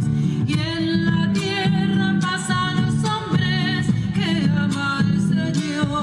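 A song: a singing voice with vibrato over instrumental accompaniment with a steady beat.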